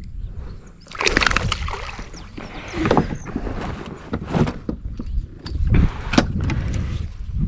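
Kayak paddle strokes splashing and sloshing in the water, with irregular splashes about every second.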